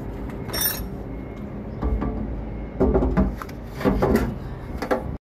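Knocks and clatters of a truck battery and its metal hold-down bracket being handled and fitted into place, coming more often in the second half, over a steady low background hum.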